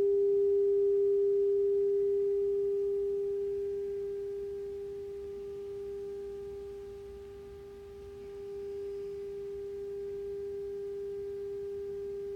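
Steady 400 Hz sine test tone from computer speakers, with faint overtones. It fades gradually for several seconds and comes back up about nine seconds in, the level shifting as the microphone is raised and lowered through the room's sound field.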